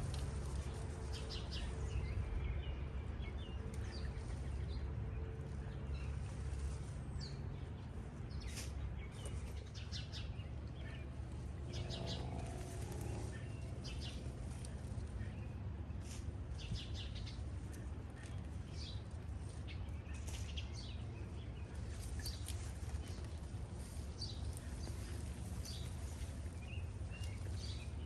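Small songbirds chirping on and off, short high calls scattered throughout, over a steady low hum.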